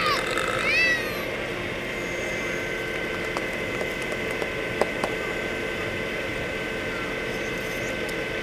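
Heavy rotator wrecker's engine and hydraulics running under load as it lowers a suspended school bus: a steady drone with a constant mechanical whine. About a second in there are two short squeals that rise and fall in pitch, and a few faint clicks follow.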